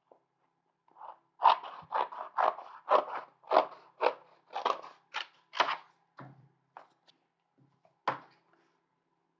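Scissors cutting through heavy card, a watercolour-pad cover about as thick as heavy cardstock. About nine snips come at roughly two a second, then a few fainter snips and one more cut near the end.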